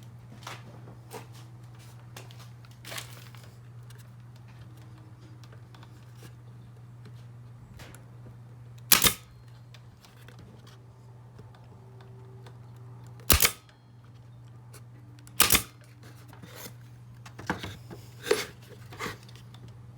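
Pneumatic pin nailer firing into wood about half a dozen times, each shot a sharp snap, several of them doubled, spaced a few seconds apart, over a steady low hum.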